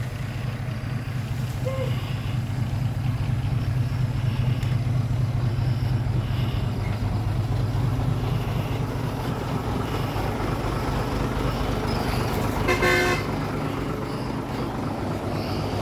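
Dump truck's diesel engine running steadily at close range, with one short horn toot about thirteen seconds in.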